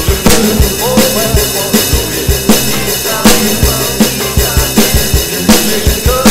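Acoustic drum kit played in a steady rock-and-roll groove, kick and snare strokes several times a second, over a recorded backing track with a melody line.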